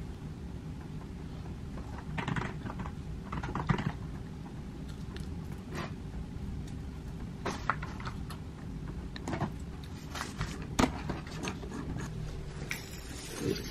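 Eating and drinking: a macaron chewed and iced coffee sipped through a straw, heard as scattered small clicks and soft rustles over a steady low hum.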